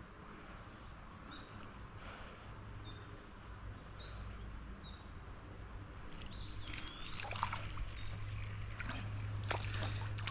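Faint creek-side sound: a bird gives a few short, high chirps. In the last few seconds, water splashing and sharp clicks grow louder as a small fish is brought in.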